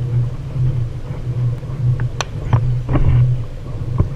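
Gunshots fired toward the kayaker: four or five sharp cracks in quick succession about two to three seconds in, the loudest among them, and one more near the end, over a steady low rumble.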